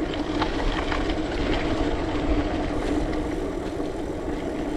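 Specialized Rockhopper mountain bike rolling along: steady tyre noise and a hum, with small scattered clicks and rattles and wind rumbling on the microphone.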